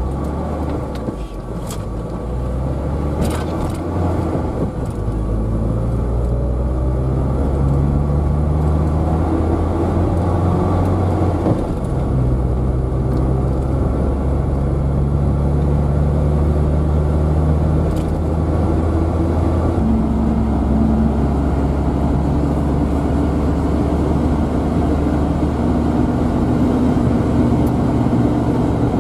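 Toyota HiAce campervan driving, heard from inside the cabin: engine and road noise build as it pulls away and gathers speed, then hold steady. The engine note shifts in steps a couple of times, as at gear changes.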